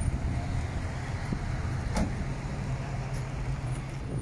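A car engine idling with a steady low rumble, and a single short click about two seconds in.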